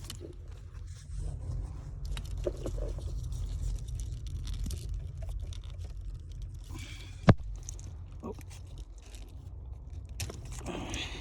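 Handling noise of an aftermarket alarm's plastic wiring-harness connectors and wires being worked loose: scraping and crinkling with scattered small clicks, and one sharp loud click about seven seconds in, over a low steady rumble.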